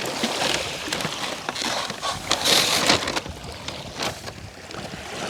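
Plastic food packaging and bags rustling and crinkling as takeaway containers of sushi rolls are unpacked, irregular handling noise with a louder crinkle about two and a half seconds in.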